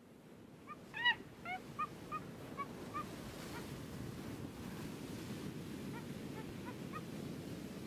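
A bird giving a quick run of short honking calls about a second in, then a few fainter calls near the end, over a steady low background rumble.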